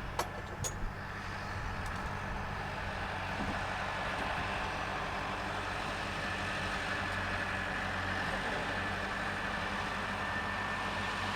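Tractor diesel engine idling steadily, with a faint steady high whine alongside it. Two sharp clicks come in the first second.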